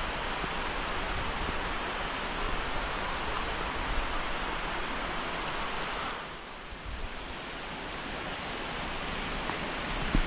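Water pouring over the waterfall at the lake's dam, a steady, even rush. It drops in level and dulls about six seconds in, then slowly builds back.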